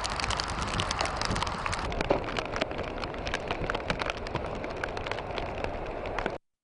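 Rain falling on a hard surface: a dense, steady hiss full of sharp drop ticks. It cuts off abruptly near the end.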